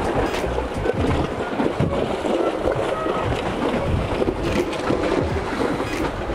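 Wind buffeting the microphone in uneven low gusts, over the wash and splash of choppy water.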